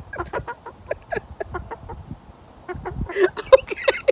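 A white hen clucking in a quick run of short notes, several a second, growing louder and busier about three seconds in.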